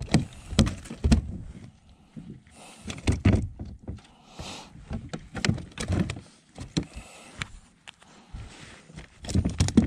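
Irregular knocks and clicks of a fishing rod and gear being handled in a plastic kayak.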